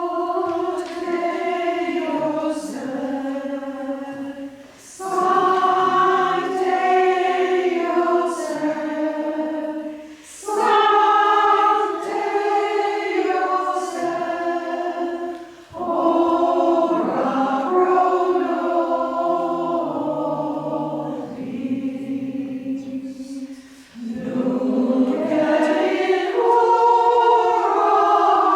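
A choir singing a sacred hymn in phrases of about five seconds, with a short pause for breath between phrases.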